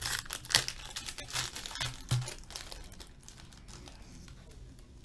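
Foil wrapper of a trading-card pack (Upper Deck Exquisite Collection hockey) being torn open and crinkled by hand, a run of crackles that is busiest in the first two seconds or so and thins out after.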